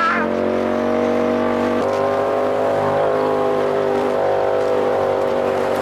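2018 Polaris RZR Turbo S's turbocharged engine running through a straight-piped race exhaust at a steady cruising speed, with a small rise in pitch about two seconds in.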